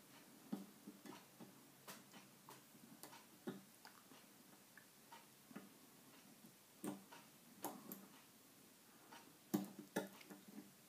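Faint, irregular small metallic clicks and scrapes of a hook pick and a pick-wire tension tool working the levers inside a two-lever brass padlock, turning the bolt back to locked to free the pick. A few louder clicks come near the end.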